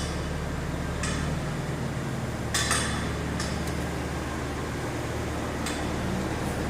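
Sharp metallic clicks from a 2009 Volvo XC90 creeping forward, about one a second and unevenly spaced, over a steady low engine hum. The owner hopes a new CV joint and hub bearing will cure them.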